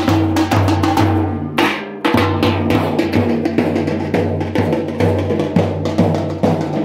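Procession drumming: large steel-shelled dhol drums and a small side drum beaten with sticks in a fast, steady rhythm, slackening briefly about two seconds in.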